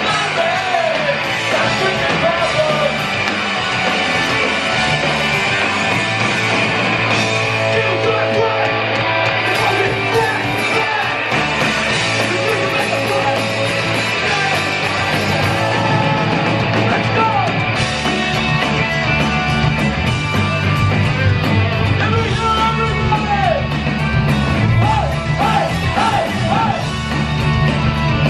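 Punk rock band playing live: distorted electric guitars, bass and drums, with shouted lead vocals over them. The low end grows fuller about two-thirds of the way through. Recorded from within the audience in a club.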